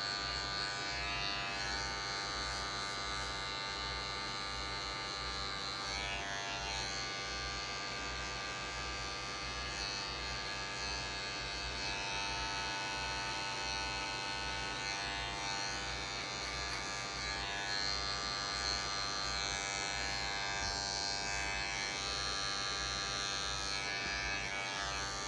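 Electric hair clipper running steadily, its blade lever set to the high zero position, cutting short hair in a fade.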